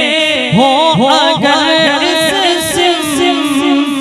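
A man reciting a naat: unaccompanied devotional singing by one male voice into a microphone, with notes that slide upward and waver in ornaments.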